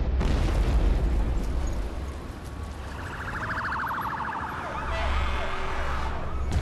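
A low rumble for the first two seconds, then an ambulance siren: a fast warble from about three seconds in, changing to a slower rising-and-falling wail near the end.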